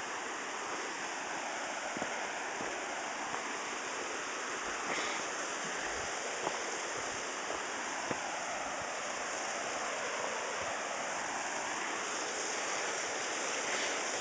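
Steady rushing of a mountain creek and small waterfall, even and unbroken, with a few faint clicks.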